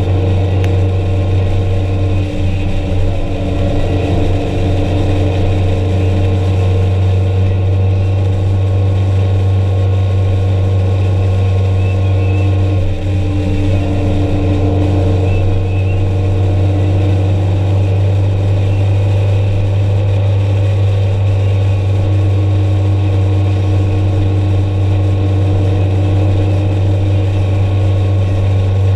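Vehicle travelling at a steady road speed: a constant low engine and road drone that does not change.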